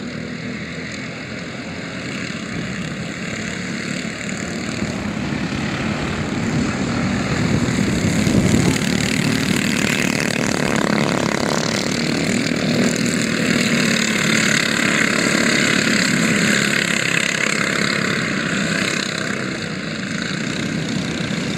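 Two racing go-kart engines running at speed, their buzzing drone growing louder about eight seconds in as the karts come nearer, then staying up.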